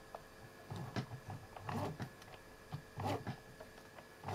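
Husqvarna Viking sewing machine handled by hand just after stitching stops, with faint, irregular clicks and soft knocks.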